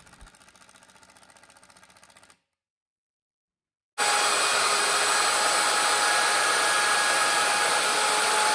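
Compact wood router running at full speed, a loud steady motor whine with high whistling tones, starting abruptly about four seconds in, ready to round over the edges of a plywood box. Before it, faint rapid ticking and a stretch of silence.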